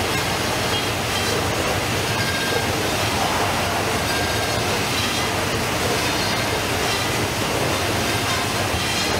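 Baader 444 heading and gutting machine running steadily as whole fish are fed into its drum to be headed and gutted: a continuous, even mechanical noise with no clear beat.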